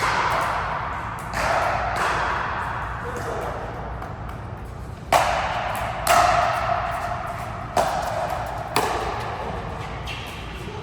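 A racket-sport rally: sharp ball-on-racket and ball-on-wall strikes roughly once a second, about seven in all, each ringing out in a large, echoing hall.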